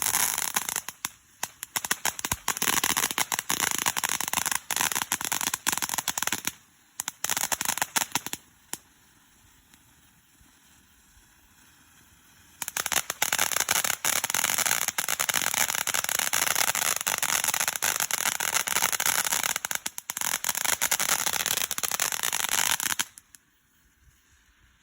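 Dense, rapid crackling and popping in two long spells, about eight and ten seconds, with a much quieter stretch between; it stops abruptly near the end.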